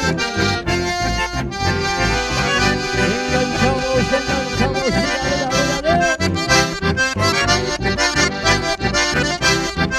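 Live chamamé band playing an instrumental passage, the accordion leading over guitar and electric bass with a steady beat.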